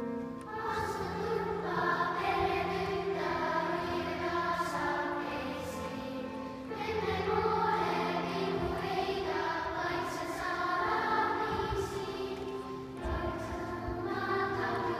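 Children's choir singing a Christmas hymn in a church, in long sustained phrases with two short breaks, over low steady held tones.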